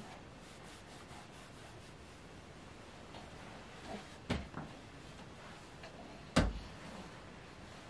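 Two soft knocks over faint room noise, about four seconds and six seconds in, the second the louder, as a baby is lowered into a wooden crib and the crib is bumped.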